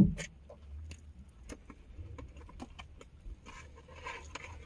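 Sparse, irregular taps of raindrops on a van's roof and sunroof, heard from inside the cabin over a faint low hum.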